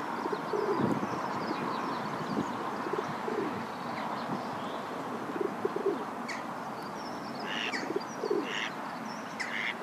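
Background birds calling: short, repeated low cooing notes, with a few brief high chirps in the second half, over a steady hiss.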